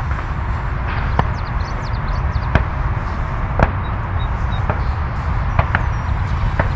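Steady rushing of a distant 70 mm electric ducted-fan RC jet in flight, mixed with wind on the microphone. Five sharp clicks are spread through it.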